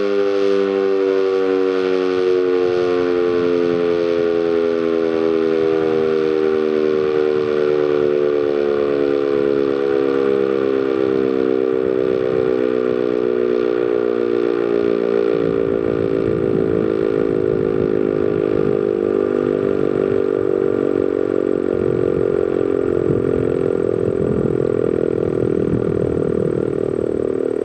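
ACA Banshee outdoor warning siren winding down at the end of its test, its tone sliding slowly and steadily lower as the rotor coasts. A low rumble joins underneath about halfway through.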